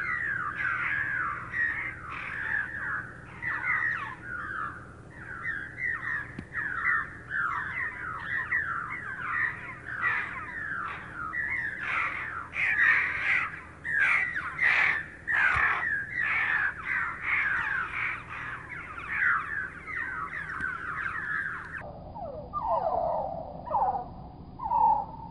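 A flock of purple martins chirping and chattering without pause, played back at half speed so the calls are lowered and drawn out. About 22 seconds in, playback slows to quarter speed and the calls drop further in pitch.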